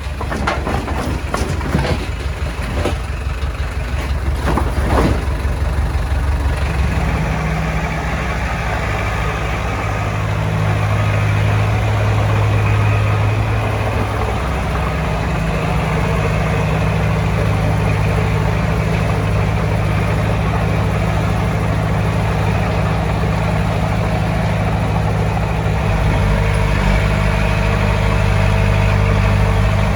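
Heavy diesel engine of earth-moving equipment running steadily at a low, even drone, with a few sharp clanks and knocks in the first few seconds.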